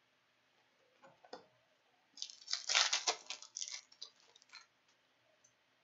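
A foil trading-card pack is opened and its cards handled. There are two faint taps, then, about two seconds in, a cluster of crinkles and clicks lasting about two seconds.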